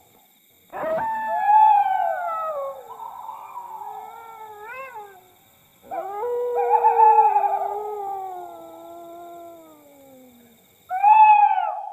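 Dog howling: two long, wavering howls that each slide slowly downward in pitch, with a third howl starting near the end.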